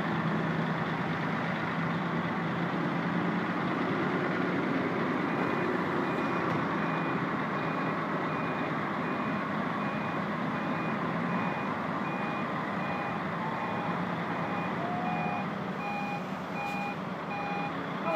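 Heavy truck's diesel engine running steadily, with a reversing alarm beeping at an even rate from about five seconds in; a second, lower-pitched reversing beeper joins near the end.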